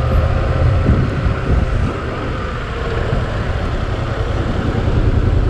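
Yamaha motorcycle engine running as the bike rides slowly, heard from the rider's position, with wind rushing over the microphone.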